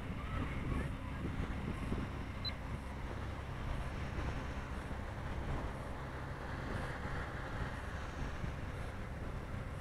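Wind blowing across the microphone: a steady, low, unpitched noise that swells and dips.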